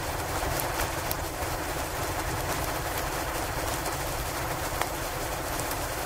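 Steady snowstorm ambience: a constant windy hiss over a low rumble, with faint scattered crackles from a log fire.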